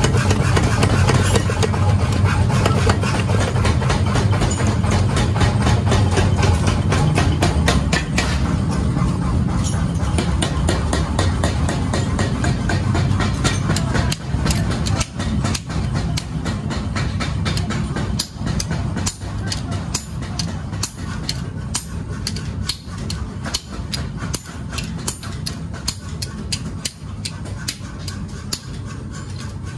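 Mechanical power hammer running and pounding a red-hot leaf-spring blade in rapid blows over its motor hum. Partway through, this gives way to separate ringing blows of a sledgehammer and hand hammer forging the hot steel on an anvil.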